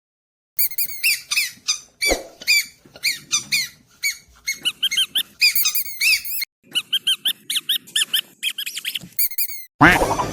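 Squeaky dog toy squeezed again and again: quick runs of short squeaks, each bending up and down in pitch, ending in one longer, fuller squeak.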